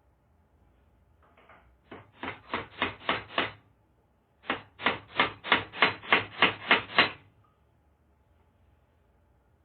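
A hammer driving a nail into wood: two runs of sharp, even blows, about six and then about nine, at roughly three a second, with a pause of about a second between them.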